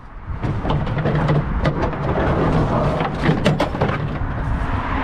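A dumped steel wheel rim being hooked and pulled through brush: rustling and scraping, with several sharp knocks in two clusters, a little over a second in and again past the midpoint, over a steady low rumble.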